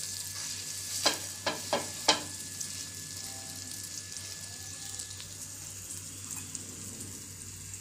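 Butter sizzling steadily on a hot tava as a chapati roll is toasted in it, with four sharp ticks about a second in.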